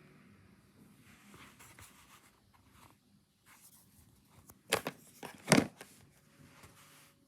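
Handling noise: scattered rubbing and rustling, with two louder brief scrapes about five seconds in.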